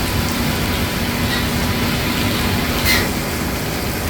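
Hydraulic servicing pump running steadily while it fills the center hydraulic reservoir of a Boeing 767-400: a constant hum over a noisy wash. A short click about three seconds in.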